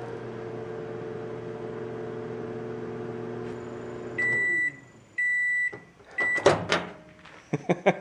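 GE countertop microwave oven running with a steady hum, with a flat sheet of aluminum foil inside that does not arc. About four seconds in the hum winds down and stops. Three beeps follow, the last one cut short, then a few clunks as the door is unlatched and opened.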